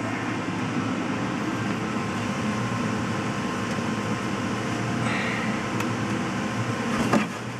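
A steady machine hum, like a fan running, with a single sharp knock near the end.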